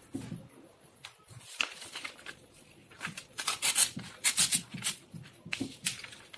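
Sheets of colour paper rustling and crinkling as they are folded and slid across a tabletop, in a string of short rustles that are loudest about halfway through.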